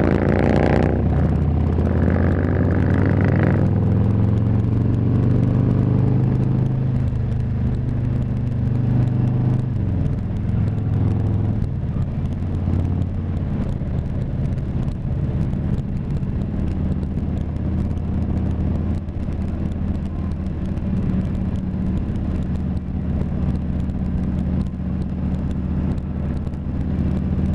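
Harley-Davidson touring motorcycle's V-twin engine running steadily while the bike cruises along a road, with wind noise. The engine note shifts briefly about ten seconds in.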